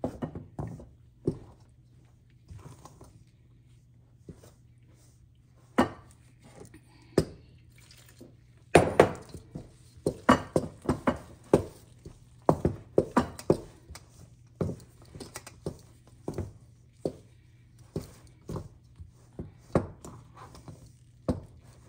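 A spoon stirring flour and water into dough in a stainless steel mixing bowl, knocking and scraping against the bowl. A few scattered knocks at first, then quick irregular ones from about nine seconds in.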